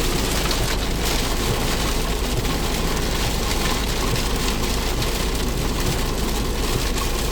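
Steady rain on a car with the low rumble of the car driving, heard from inside the cabin.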